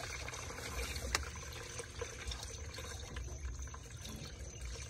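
50/50 coolant and distilled-water mix pouring from a plastic gallon jug into a plastic funnel on a car's coolant reservoir, a steady trickling fill. A single sharp click about a second in.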